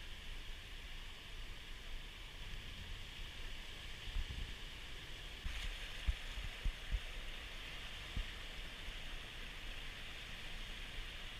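Rough storm-surge sea rushing steadily, with wind buffeting the microphone in irregular low thumps, most of them between about four and eight seconds in.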